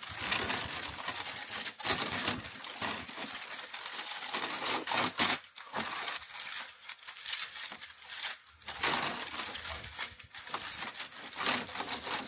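Scotch Cushion Lock die-cut kraft-paper wrap crackling and rustling as it is pulled off the roll by hand and bunched up. The crackle comes in uneven stretches, with a couple of short pauses midway.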